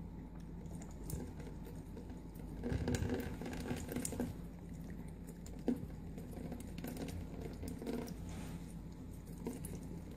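Cat lapping at a thin trickle from a water dispenser's tap and pawing at it: faint soft pattering and small clicks, busier about three seconds in, with one sharper click a little past halfway.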